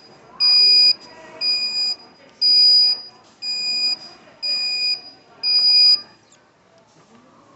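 Electronic alarm beeping in a steady rhythm: six high half-second beeps about a second apart, stopping about six seconds in.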